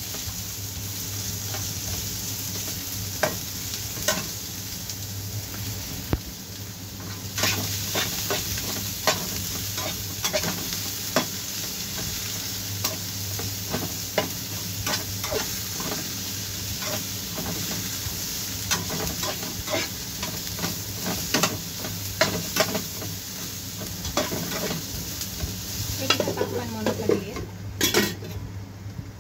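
Sliced onions sizzling in a frying pan while a spatula stirs and scrapes them, with frequent clicks of the spatula against the pan. A steady low hum runs underneath, and near the end a lid clatters onto the pan.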